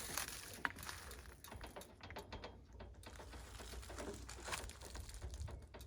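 Faint scattered clicks and rustles of hand work on a sawmill setup, over a low rumble.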